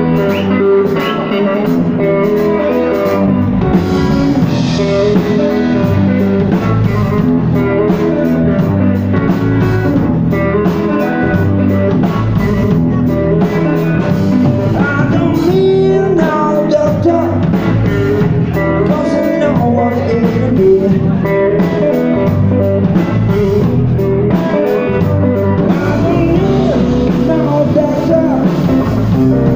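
Live band playing loud through amplifiers: electric guitar, bass guitar and drum kit, with a man singing into the microphone.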